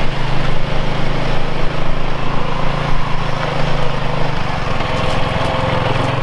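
Rokon two-wheel-drive trail motorcycle's engine running steadily at a slow pace, its pitch shifting about four seconds in.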